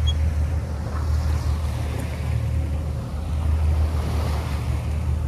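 Sailboat under engine power: a steady low engine drone under the rush of the bow wave along the hull, with wind buffeting the microphone.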